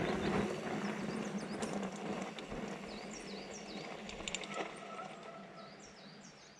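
Small birds chirping in short repeated swooping calls over a quiet outdoor background, with the sound fading out near the end.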